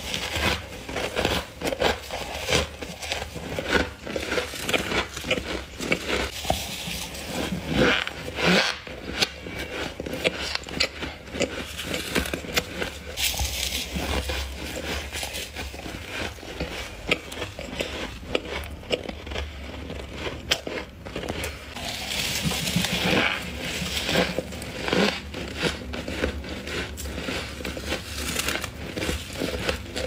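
Close-up biting and chewing of humidifier frost: many crisp, irregular crunches following one another as mouthfuls of frost are bitten through.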